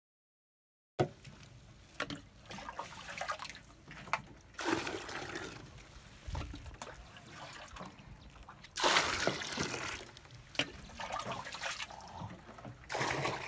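Water sloshing and splashing in a plastic water storage tank, starting about a second in and coming in irregular surges, with a few sharp knocks.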